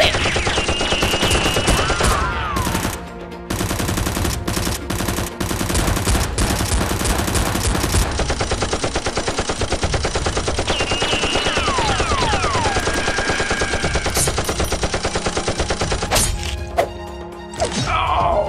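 Rapid automatic gunfire in a long, sustained barrage, with a brief break about three seconds in, thinning out near the end. A few high whistling tones slide downward over the shots.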